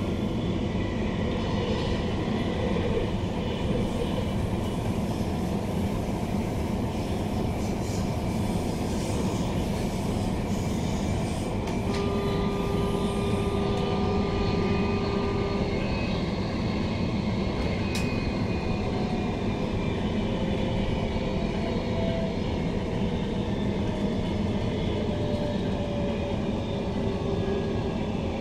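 Queensland Rail NGR electric multiple unit heard from inside the passenger car while running at speed: a steady rumble of wheels on rail and the car body. Faint whining tones come in about twelve seconds in, and a few faint sliding tones follow later.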